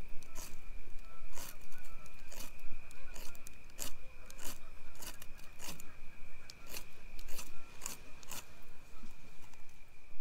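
Short scraping strokes, irregular at about one to two a second, like a blade or striker drawn across a fire starter or wood while a campfire is being lit. A steady high tone runs underneath.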